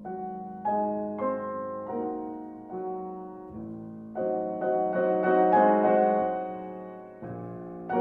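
Background piano music: a slow melody of notes struck one after another, each fading, over held lower notes.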